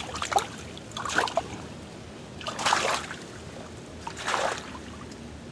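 Water splashing in three short bursts, about a second and a half apart, the middle one the loudest, as a caught fish thrashes at the surface or in the landing net.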